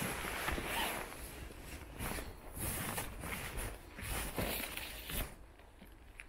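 Footsteps brushing through low forest undergrowth, with irregular rustling of leaves and stems; the rustling dies down for about a second near the end.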